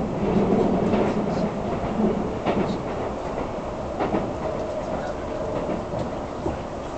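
Keisei Skyliner train running at speed, heard from inside the passenger cabin: a steady rumble of wheels and running gear, easing off slightly, with a few sharp clicks from the track.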